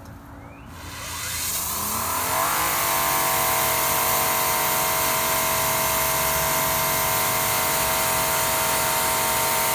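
Greenworks Pro 2300 electric pressure washer's motor spinning up with a rising whine, then running steadily under a high hiss.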